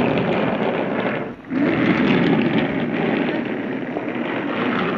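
A toy train coach pushed by hand and rolling over a hard floor right beside the microphone, giving a loud rumble. It breaks off briefly about a second and a half in, then rolls on.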